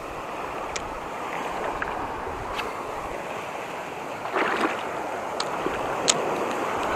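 Small waves washing over a rocky shoreline in a steady wash, with a few sharp clicks and a short louder splash about four and a half seconds in.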